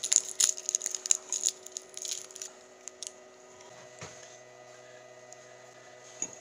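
Dense crinkling and crackling of a foil wrapper being handled, for about two and a half seconds. Then a few light clicks as pieces of copper wire are dropped into a crucible, over a faint steady hum.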